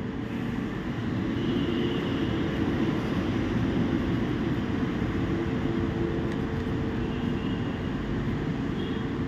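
Steady machine hum and rushing noise with a constant low tone, getting a little louder about a second in and then holding level.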